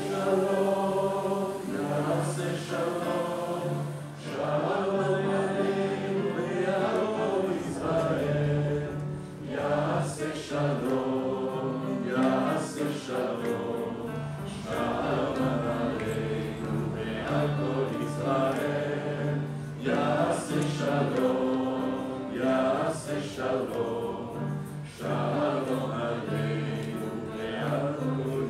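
Background choral music: a choir singing over a steady low held note.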